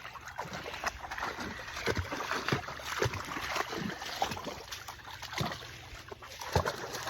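A dog splashing and sloshing about in shallow creek water: irregular plops and splashes over the steady trickle of the flowing creek.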